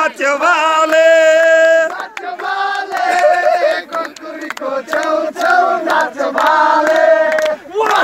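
A group of voices singing and chanting together in a victory celebration song, in phrases of long held notes with short breaks between them.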